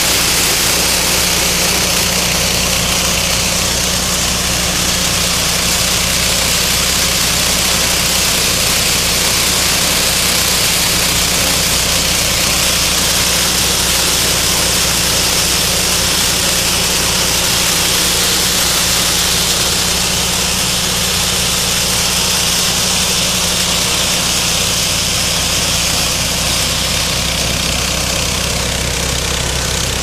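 Engine of a walk-behind mini combine harvester running steadily while it cuts and threshes wheat: an even mechanical hum with a steady hiss above it.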